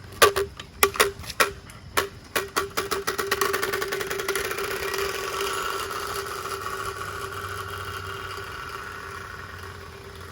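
Turbospoke bicycle exhaust noise maker with its quietest card, a plastic card flapping against the spinning spokes: separate clicks at first that speed up over a few seconds into a steady motor-like buzz as the bike gathers speed, then fading gradually.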